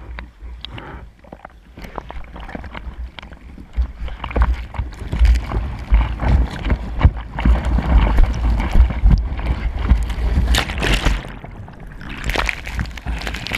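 Sea water sloshing and splashing around an action camera at the surface, building to a heavy rushing churn with a deep rumble through the middle. Near the end the camera is swamped by broken whitewater.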